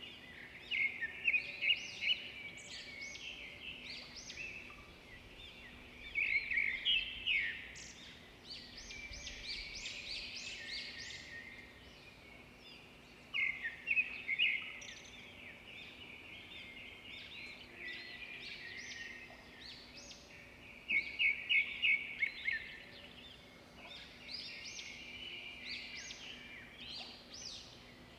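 Small songbirds chirping and twittering continuously in high-pitched notes, with louder quick runs of chirps every several seconds. A faint steady low hum lies beneath.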